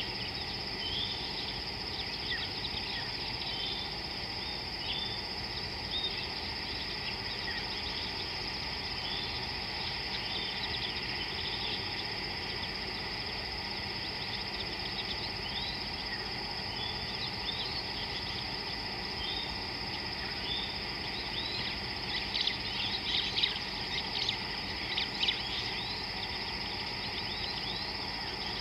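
Outdoor wildlife ambience: a steady, high insect trill with many short bird chirps over it. The chirping grows busier and louder near the end.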